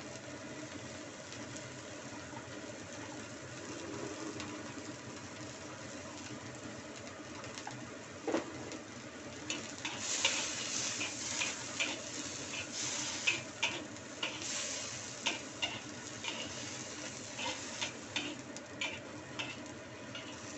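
Diced carrot, corn and peas frying in a wok with a steady quiet sizzle; from about nine seconds in, a metal spatula scrapes and clacks repeatedly against the wok as the vegetables are stir-fried.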